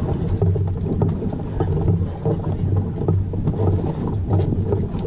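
Outrigger fishing boat's small engine running steadily, with light clicks over it.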